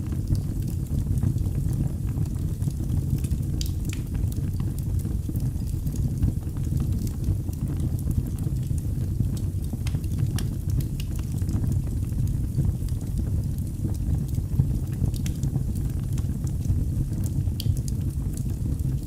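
Wood fire burning in a fireplace: a steady low rumble with scattered small crackles and pops.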